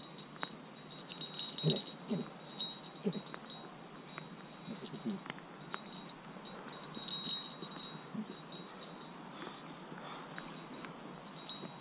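Small metal bell jingling on and off, in brighter clusters about a second in, around seven seconds in and again near the end, with a thin high ringing between.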